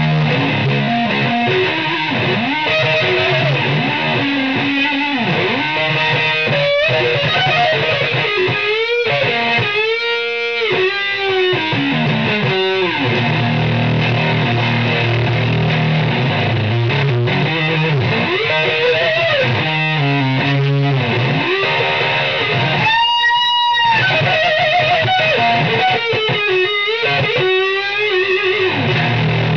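Electric guitar played solo, with wailing string bends and sliding notes over a steady low drone. Long, wavering held notes ring out around ten seconds in and again at about 23 seconds.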